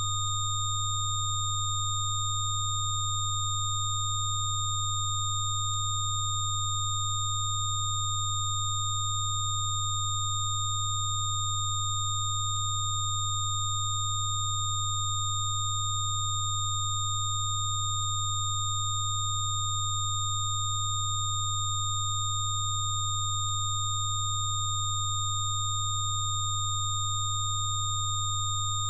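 Rife frequency tones: a steady, unchanging blend of electronic sine tones, with a strong low hum-like tone and several fainter high-pitched whistling tones held together.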